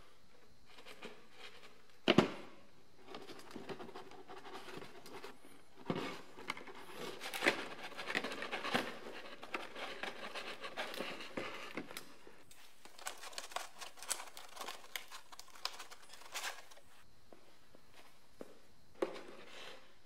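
Handling noise of thin plastic drip-watering tubing being pushed onto small plastic connectors, with rustling, scraping and light clicks, and the large PET bottles now and then knocking or crinkling. A sharp knock about two seconds in is the loudest sound.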